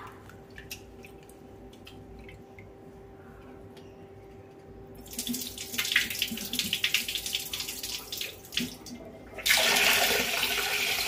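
Broken rice being rinsed in a steel bowl at a kitchen sink: faint stirring at first, then about five seconds in the cloudy rinse water splashes as it is poured off, and near the end the tap runs steadily into the bowl.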